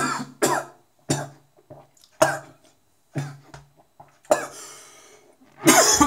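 A man coughing in a string of sharp, separate coughs, with a long breathy rasp about four seconds in and the loudest coughs near the end.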